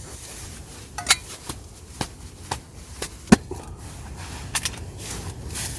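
Hands handling small objects: scattered sharp clicks and taps with light rustling, over a faint steady hiss.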